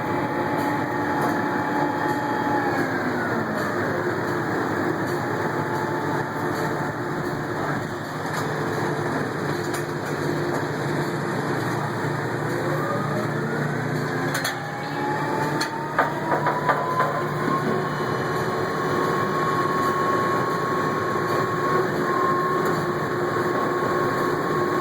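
Drilling rig machinery running steadily, its engine pitch falling about three seconds in and climbing again between about thirteen and seventeen seconds. A few sharp metal clanks come about sixteen seconds in.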